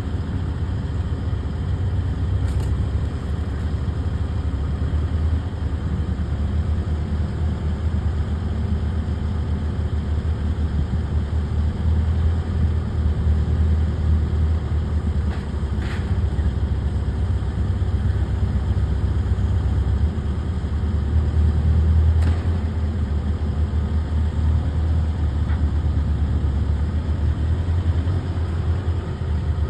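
An engine running steadily with a low, even rumble, with a few faint clicks.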